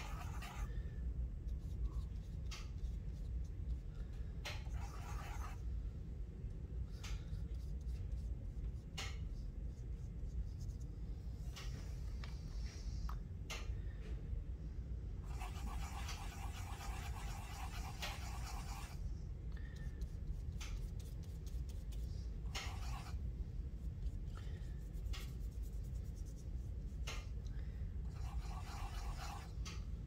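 Paintbrush scrubbing on a tempera paint cake: a scratchy rubbing in several short spells, the longest for about three seconds midway, with a few light clicks, over a steady low hum.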